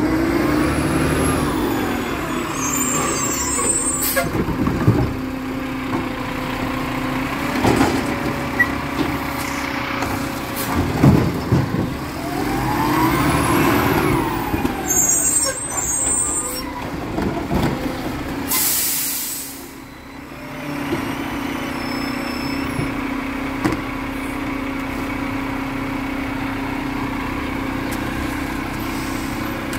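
Garbage truck's diesel engine running, with rising and falling whines as it works and scattered clanks, and a loud air-brake hiss lasting about a second two-thirds of the way through; afterwards the engine runs on steadily.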